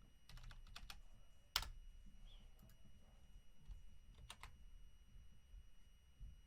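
Faint computer keyboard keystrokes and clicks, a few scattered taps rather than steady typing, with one sharper click about a second and a half in.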